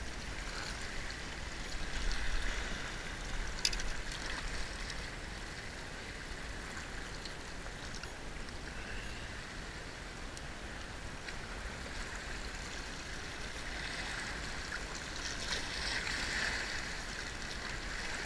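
Small waves lapping and washing against a rocky, shell-covered shoreline: a steady low wash that swells a little about two seconds in and again near the end, with one sharp click about three and a half seconds in.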